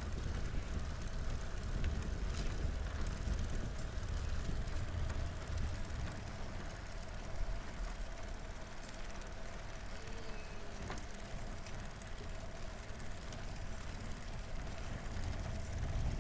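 Rolling noise of a recumbent trike on a paved trail, heard through a handlebar-mounted camera: a steady low rumble of wind on the microphone and tyres on the road, with a faint steady hum above it.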